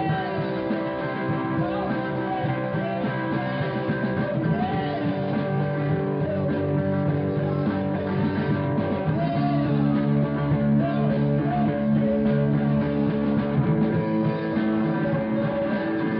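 Rock band playing, guitars to the fore over bass and drums.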